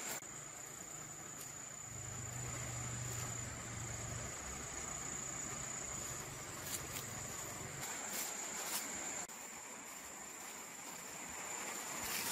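Steady, high-pitched drone of insects, one unbroken tone, with a faint low hum under it for the first two-thirds. A few short rustles and snaps of foliage come in the second half.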